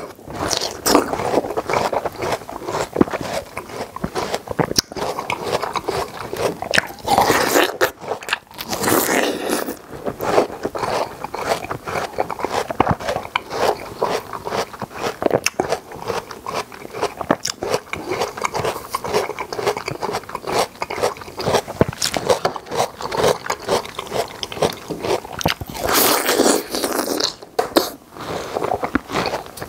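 Close-up wet crunching and chewing as mouthfuls are bitten straight out of the juicy red flesh of a half-moon watermelon, with several louder bites along the way.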